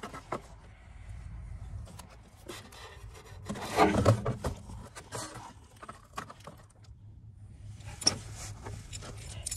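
Handling noises: scattered light clicks, rubs and scrapes as the phone camera and parts are handled under the car, busiest about four seconds in.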